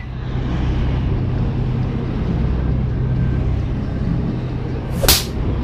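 Steady low hum of a fishing boat's engine under a hiss of wind and water, with one short sharp crack about five seconds in.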